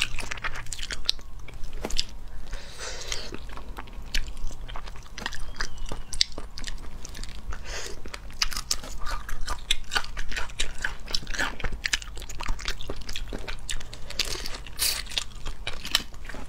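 Close-up crunching and cracking of cooked crayfish shells, pulled apart by hand and bitten, with wet chewing. Many sharp cracks come irregularly throughout.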